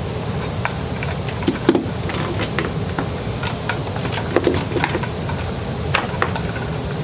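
Scattered light clicks and knocks of sewing machine foot pedals and their cords being handled, with a few dull thuds, over a steady low hum.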